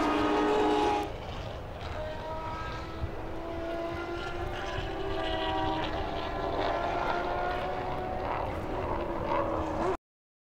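Turismo Carretera race car engines running at speed on track. The sound drops to a lower level about a second in, then the engine note climbs slowly in pitch before cutting off suddenly near the end.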